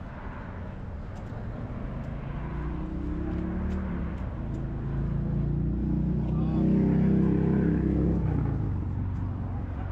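A vehicle engine passing slowly, growing louder to a peak about seven seconds in and then fading.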